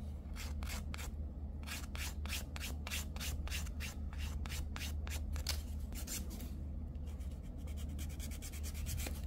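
Emery board rasping back and forth across a fingernail in quick strokes, about four a second, with two short pauses. The nail is being shaped and the raised edge of a cured silk wrap filed down.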